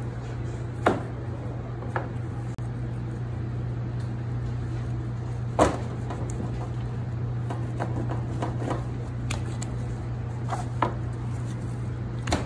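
A knife and a bone-in beef rib rack knocking on a plastic cutting board while the rack is cut into tomahawk steaks and turned over: a handful of short, sharp thumps, the loudest about halfway through. A steady low hum runs underneath.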